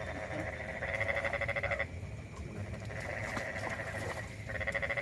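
Frogs calling, in repeated bouts of rapid pulsing trills about a second long that stop and start again.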